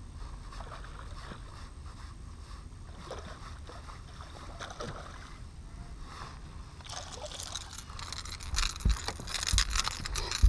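Water lapping faintly at a bass boat's hull, then a hooked bass splashing at the surface as it is reeled in. The splashing starts about seven seconds in, and a few thumps near the end come as the fish is swung aboard onto the deck.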